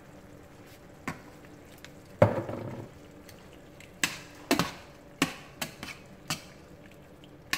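Metal kitchen utensils knocking and scraping against a stainless steel pan while stirring a simmering pan of meat and broth: one louder clank about two seconds in, then a string of sharp clinks.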